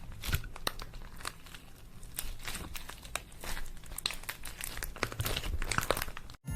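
Slime mixed with makeup being squished and stretched by hand, giving many small sticky pops and crackles. It stops abruptly just before the end.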